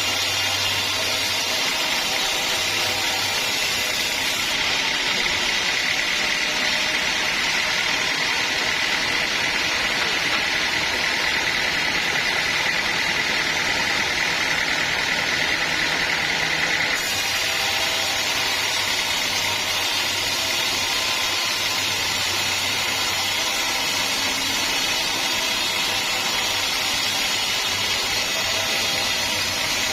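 Sawmill running steadily while sawing a teak log: a loud, even mechanical noise. The tone shifts abruptly about five seconds in and back again about seventeen seconds in.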